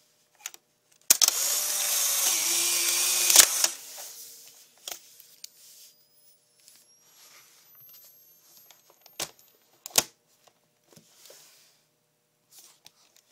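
Polaroid One Step Close Up instant camera taking a picture: a shutter click, then its motor whirring for about two seconds as it ejects the 600 film print, ending in a click. After that the flash recharges with a faint rising whine, and there are a few sharp clicks.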